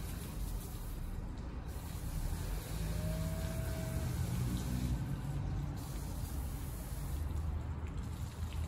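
Water spraying in a steady hiss, as when rinsing a car during a handwash.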